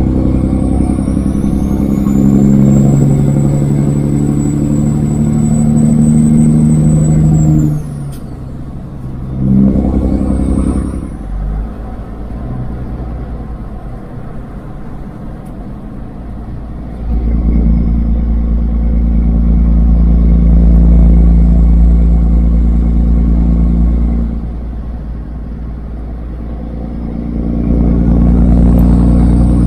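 Straight-piped diesel engine of a Kenworth W900 semi truck pulling under power with a high turbo whistle. It drops off about eight seconds in, blips once, then comes back on strongly twice more.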